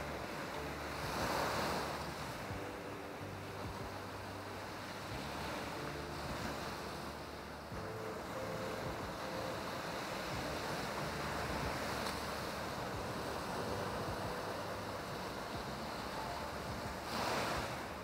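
Sea waves breaking and washing up a beach: a steady hiss of surf with two louder surges, one about a second in and one near the end.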